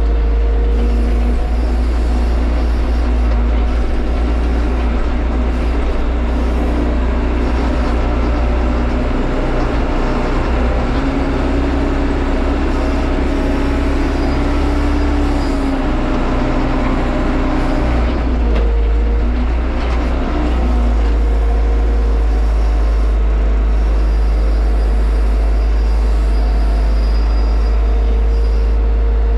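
Tractor engine running steadily under load, heard from inside the cab, with a constant low rumble. About ten seconds in its pitch rises and holds for several seconds before falling back around eighteen seconds.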